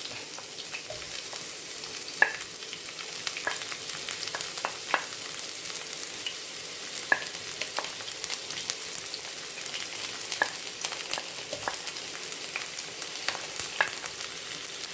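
Roughly chopped white and red onions frying in hot oil in a pot: a steady sizzling hiss with scattered sharp crackles and pops.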